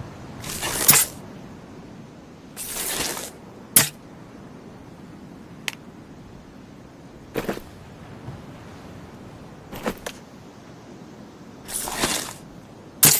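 Compound bow being shot again and again: a series of sharp snaps of the string on release, about seven in all, some led in by a short noisy swell that rises to the snap.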